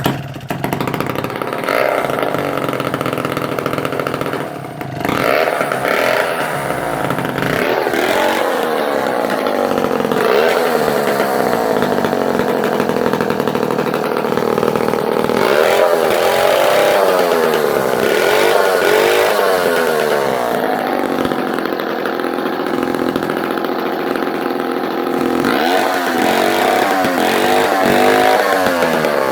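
Clinton D65 Super vintage two-stroke chainsaw running loud, dipping briefly about five seconds in. It is then revved up and down again and again.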